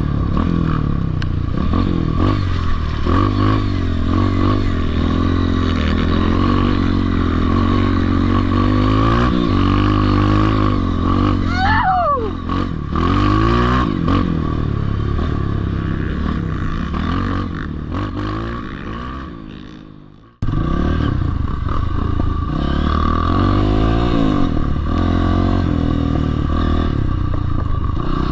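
Dirt bike engine repeatedly revving up and easing off while riding a dirt track. Just before 20 seconds the sound fades out, then the engine comes back in suddenly.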